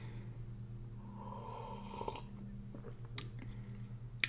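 Faint breathing and small mouth sounds of a person swallowing and exhaling after a sip of coffee, over a steady low electrical hum, with a short sharp click just before the end.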